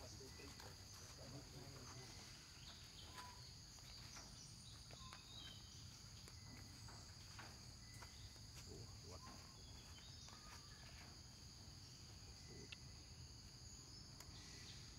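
Faint, steady high-pitched insect drone in the background, with scattered light clicks and a low rumble underneath.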